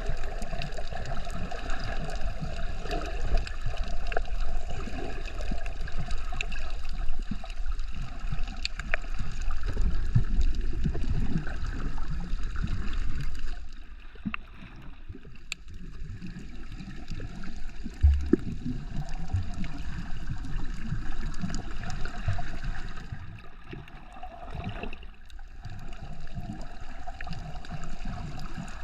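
Seawater sloshing and gurgling around a camera in the water while snorkeling. It drops quieter for a few seconds about halfway through and again near the end.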